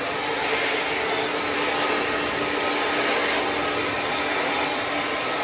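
Handheld hair dryer running steadily, a constant rush of air with a faint low hum under it.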